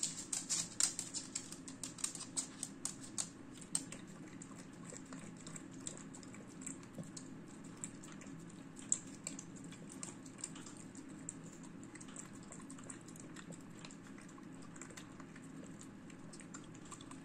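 Dog eating wet food from a bowl: quick, wet chewing and lapping clicks. They come in a dense flurry over the first few seconds, then sparser and softer.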